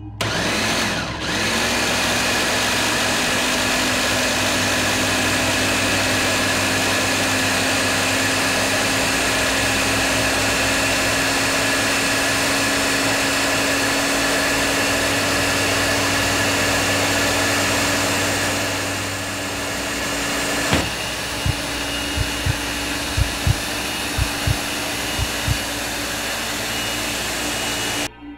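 Countertop blender running with a jar of red berries: it starts suddenly, its motor whine rises over the first second or two, then it runs steadily. About 21 seconds in there is a sharp click and the tone shifts, several low thumps follow, and the sound cuts off abruptly near the end.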